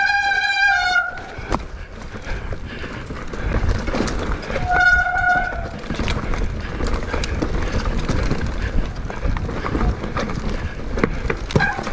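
A horn sounds twice: a blast of about a second at the start, dipping slightly in pitch at its end, and a shorter one about five seconds in. A steady low rumble runs underneath.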